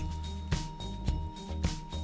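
Background music with a steady beat of about two strokes a second over a bass line.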